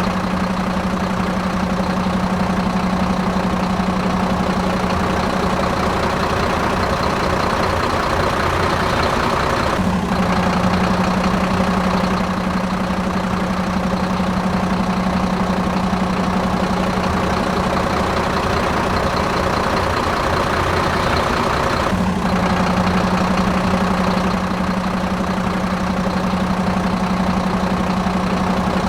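Steady engine idling hum, with brief breaks about ten seconds in and again about twenty-two seconds in, where the sound starts over.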